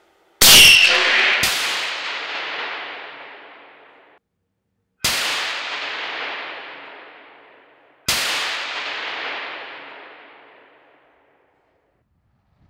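Four shots from a hunting rifle fitted with an aimSport Triton 50 Sneezer suppressor, the first two about a second apart. Each shot is a sharp crack followed by a long echoing tail that dies away over two to three seconds.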